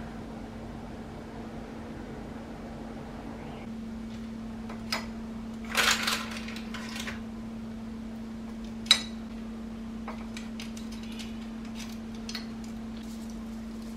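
Metal tongs and chicken skewers clinking against a ceramic serving dish: a cluster of clatters about six seconds in, a sharp clink about three seconds later, then a few light taps, over a steady low hum.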